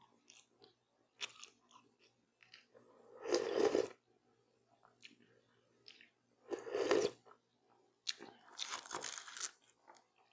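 Close-up mouth sounds of broth being slurped from a stainless steel bowl held to the lips. There are two loud sips about three seconds apart, then a longer, hissier mouth sound near the end, with small wet clicks in between.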